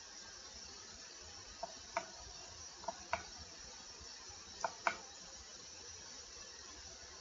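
Computer mouse button clicking, six sharp clicks in three close pairs, over a steady hiss.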